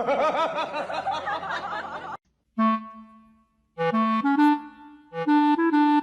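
Clarinet music playing short phrases of held notes, starting after a brief gap. It is preceded by about two seconds of a loud wavering, wobbling pitched sound that cuts off suddenly.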